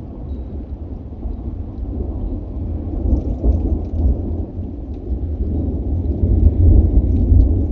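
Long low rumble of thunder, building gradually and loudest about six to seven seconds in.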